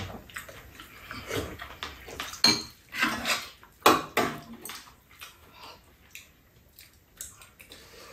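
Metal spoons and chopsticks clinking and scraping against ceramic bowls and a frying pan, with two sharp clinks about two and a half and four seconds in.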